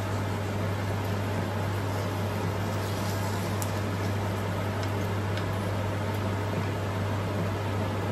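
Steady electric hum with an even rush of noise from a kitchen appliance running at the stove, with a few faint clicks of a wooden spatula stirring in a frying pan.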